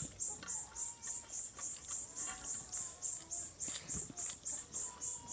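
An insect chirping in a steady high-pitched pulse, about four to five chirps a second, with a few faint clicks beneath it.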